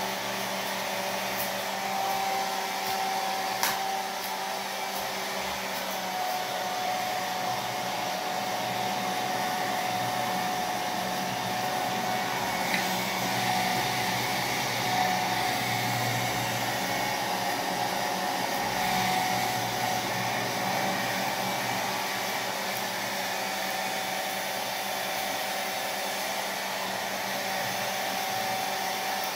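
Handheld hair dryer running steadily on full blow, a continuous rush of air with a steady motor whine through it, as it is waved over hair.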